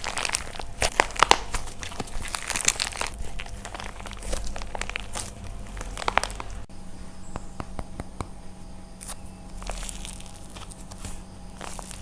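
Dried painted plaster clay being crushed by hand, a dense run of crunching, crackling breaks. About six and a half seconds in it cuts to sparser, quieter crackles that thicken again near the end.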